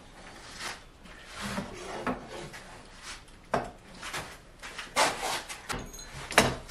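Glued wooden strips of a cutting-board glue-up being slid and rubbed into place on a wooden bench, with sharp knocks about three and a half and five seconds in. The loudest clunk comes near the end, as a steel sash clamp is set down across the boards.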